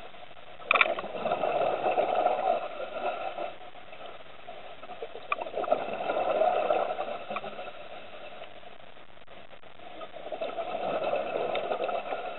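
Underwater sound of a scuba diver breathing through a regulator: three long exhales, about five seconds apart, each a swelling rumble of bubbles, over a steady underwater hum.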